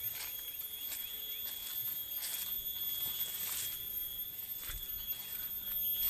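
Footsteps and rustling through forest undergrowth, a few irregular brushes and steps, over a steady high-pitched whine.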